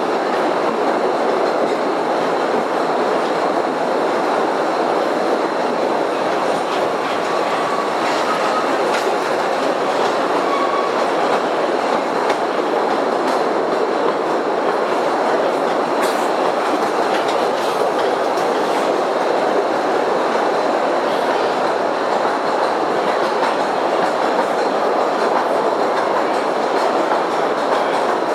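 Small cave tourist train of Postojna Cave running steadily along its rails, a continuous rolling rumble with faint clicks of the wheels.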